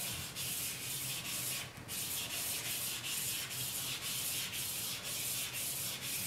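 Half a stick of charcoal laid flat and scrubbed back and forth over drawing paper, a dry scratchy rubbing in quick even strokes, about two or three a second, with a short break about two seconds in. This is the laying of an even gray base tone over the whole sheet.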